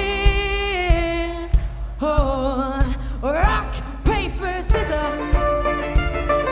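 A band playing live, with women's voices singing long held notes with vibrato over a steady drum beat; a little past the middle the voice slides upward in pitch.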